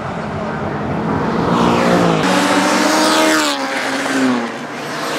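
Race car engine revving hard, its pitch climbing, dropping abruptly about two seconds in, then rising and falling away again.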